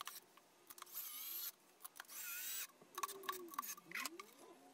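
Cordless drill/driver running in two short bursts of about half a second each, driving screws that fasten a speaker driver to a 3D-printed plastic enclosure, with light clicks between the bursts.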